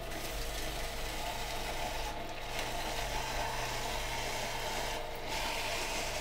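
Green Star twin-gear juicer running, its gears crushing carrots pushed down the feed chute with a wooden plunger: a steady grinding over the motor's low hum, easing briefly twice.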